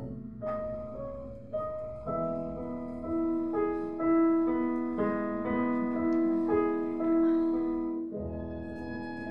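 Slow piano passage played live, single notes and chords struck about once or twice a second and left to ring. A violin comes in near the end with a long held note.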